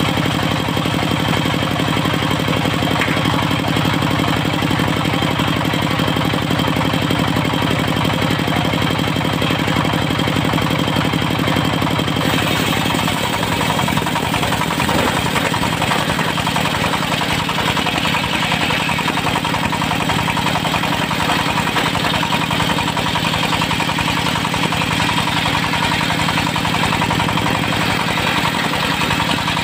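Diesel engine of a portable circular sawmill running steadily. About twelve seconds in its tone changes and a brighter hiss joins it.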